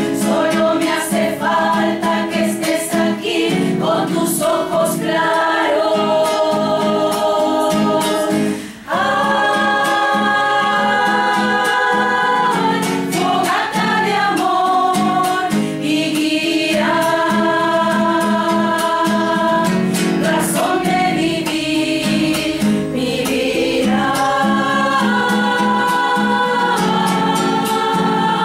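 Choir singing in harmony with guitar accompaniment, holding long notes that change every second or two, with a brief break about nine seconds in.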